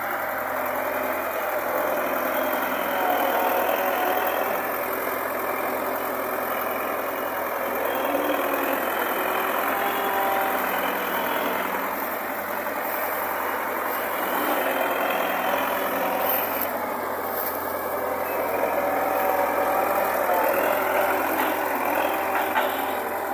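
Engine of a heavy farm machine running steadily, its level swelling and easing a little.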